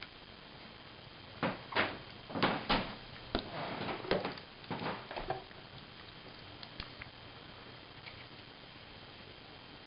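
Plastic case of a Garmin 60CSx handheld GPS being handled and pried at: a cluster of clicks, knocks and short scrapes in the first half, then a few faint ticks.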